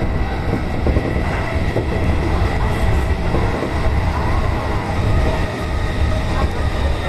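Electric commuter train running on the Negishi Line, heard from inside at the front: a steady, loud rumble of wheels on rail with a faint steady whine, as the train nears a station.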